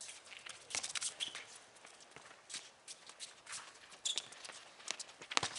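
Sneakers scuffing and tapping on a concrete rink as players run, with occasional knocks of a soccer ball being kicked; the sharpest knock comes near the end.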